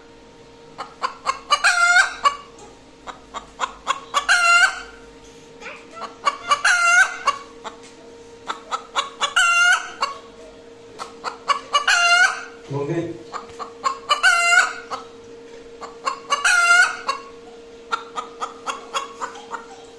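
Hen's egg-laying cackle after laying an egg: runs of quick clucks, each climbing into a long, loud squawk, repeated about every two and a half seconds.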